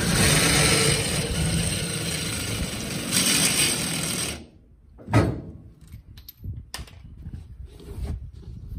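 Cordless drill spinning the screw fitting of a bottle jack, running steadily for about four seconds under load as the jack presses down on a mower tire to break its bead, then stopping. A few quieter knocks follow, with one louder thump about five seconds in.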